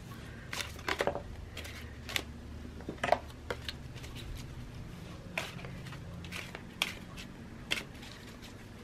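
A deck of cards being shuffled by hand: about a dozen soft, irregular clicks and slaps as packets of cards are slid and dropped against one another.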